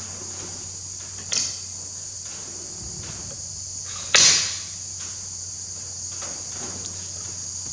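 A sharp metallic knock of a steel tool against the cast body of a CAV rotary diesel injection pump held in a vise, about four seconds in, ringing briefly. A smaller click comes a second or so in. A steady high-pitched hiss and a low hum run underneath.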